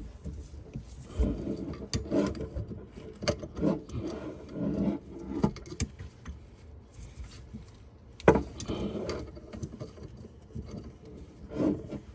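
Irregular clicks, knocks and rubbing of an adjustable wrench and plumbing fittings as a PEX faucet supply line's nut is worked onto the cold-water valve, with one sharp knock about eight seconds in.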